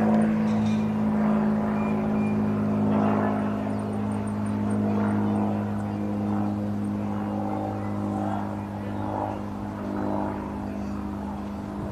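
Car engine idling, a steady low hum that holds at one pitch throughout.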